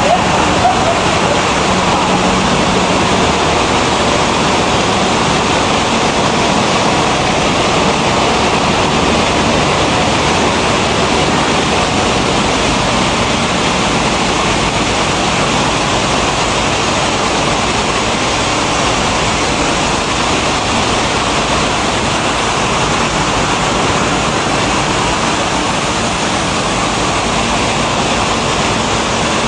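Maize milling plant machinery running: a steady, loud, even noise with a faint low hum underneath.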